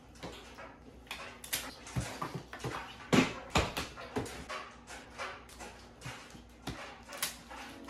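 Packing tape being pulled off a roll and pressed onto a hard-shell plastic suitcase: irregular scratchy rips, taps and knocks on the shell, the loudest about three seconds in.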